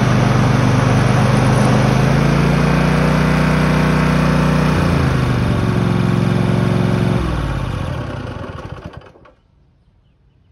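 Zero-turn riding mower engine running, throttled down in steps, then shut off: it runs down and stops about nine seconds in.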